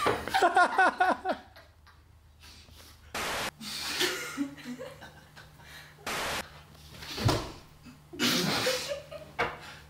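People laughing: a burst of hearty laughter with falling 'ha-ha' pitches in the first second and a half, and more laughter near the end. Two short bursts of hiss come between them, and there is a single sharp knock about seven seconds in.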